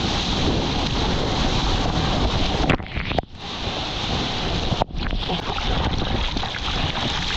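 Surf and whitewater rushing and splashing around a surfboard, with wind buffeting the action camera's microphone. The sound drops out briefly twice, about three seconds in and again near five seconds.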